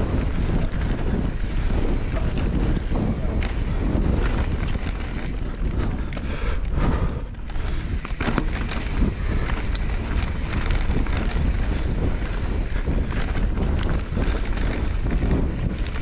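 Wind buffeting the microphone of a mountain bike's ride-along camera during a fast descent. Under it run the tyres on dirt and stones and the rattling knocks of the bike over the rough trail, easing briefly about seven seconds in.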